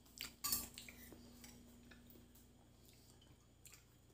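Spoons clinking and scraping against bowls of macaroni: a few light clicks, the loudest about half a second in, then faint scattered ticks over a faint steady hum.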